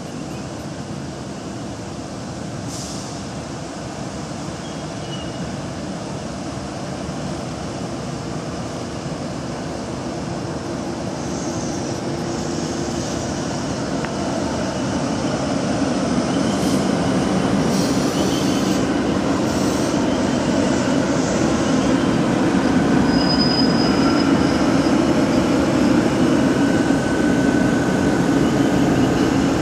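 Sydney CityRail C-set double-deck electric train running along the platform, its wheel and motor noise growing steadily louder. A couple of short, high wheel squeals come in the last few seconds.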